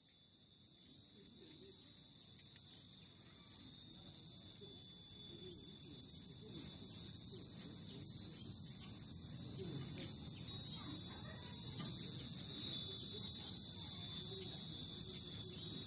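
A chorus of cicadas droning steadily, with faint light tinkling from hanging Japanese wind chimes (fūrin) stirred by the breeze. The sound fades in over the first several seconds.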